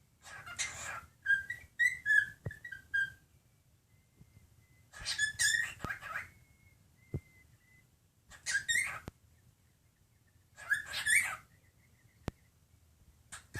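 A male silver white-faced cockatiel singing: short bursts of whistled notes that bend up and down, mixed with raspy chatter, coming every two to three seconds. A few sharp single clicks fall in the pauses.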